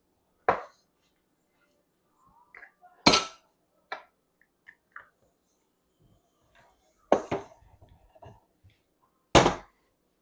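Kitchen dishes and utensils knocking and clinking: about five separate sharp knocks spread out with quiet between, the loudest about three seconds in and near the end.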